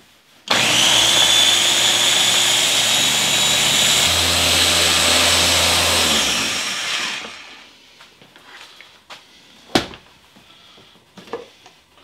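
Small electric food processor's motor running at full speed, blending blanched herbs, garlic and olive oil into a smooth green sauce. It starts abruptly about half a second in, runs loudly for about six seconds, then spins down; a single sharp click comes a couple of seconds later.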